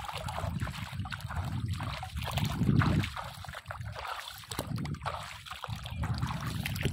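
Footsteps wading and splashing through shallow water, with wind rumbling on the microphone; the splashing is loudest about two to three seconds in.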